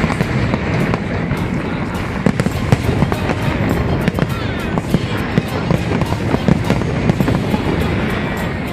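Fireworks display going off: a dense, continuous crackle of many quick pops and sharp reports, several every second.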